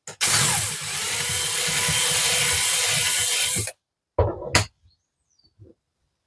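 Small power drill running for about three and a half seconds, drilling out the rivet that holds the base on a diecast model car. Two short knocks follow soon after it stops.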